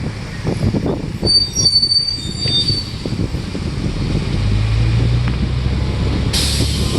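Rumbling ride of a tour bus in city traffic with knocks and jolts. A high squeal, like brakes, sounds for about a second and a half early on, the engine hums in the middle, and a sudden hiss starts near the end.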